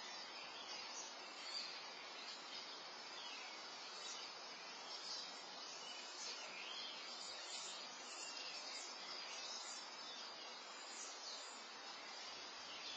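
Quiet outdoor background: a steady hiss with faint, scattered bird chirps.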